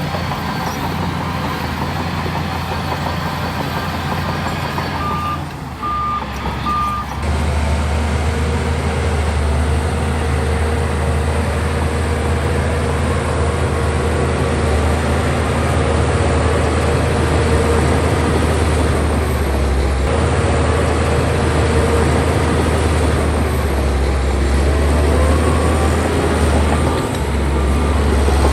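Heavy diesel earthmoving machinery running steadily with a deep engine hum, with three short reversing beeps about five to seven seconds in; after that the engine is heavier and louder.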